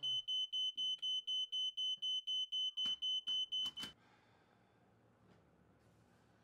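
Smoke alarm sounding a rapid, high-pitched beep, about four beeps a second. Two sharp clicks come near the end of its run and it cuts off suddenly a little under four seconds in, leaving only faint room tone.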